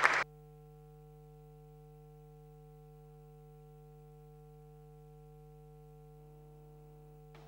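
Applause cut off abruptly a moment in, leaving a faint, steady electrical hum made of several fixed tones from the sound system.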